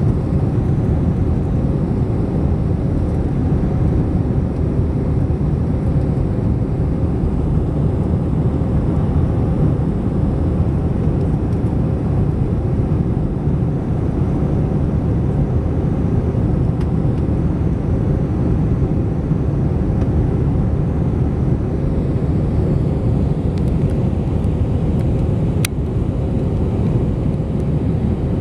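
Steady engine and airflow noise heard from inside the cabin of an Airbus A321-211 with CFM56-5B engines, a deep even roar with a faint steady hum, unchanging throughout.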